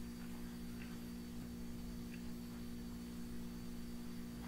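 A steady low hum under faint hiss: background noise of the recording, with no other sound.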